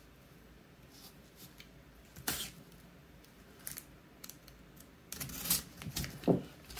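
Hobby knife cutting the packing tape on a cardboard mailer while the box is handled: a sharp click about two seconds in, then a run of short scrapes and rustles in the last second and a half.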